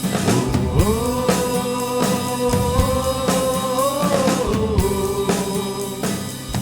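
Closing music: a drum kit beat under one long sung note that slides up about half a second in, holds, and steps down near the end.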